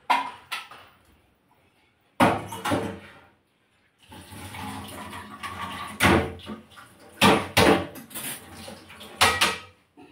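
Steel kitchen vessels clanking as they are handled and set down, several sharp knocks spread through the stretch, with water running from a tap from about four seconds in to near the end.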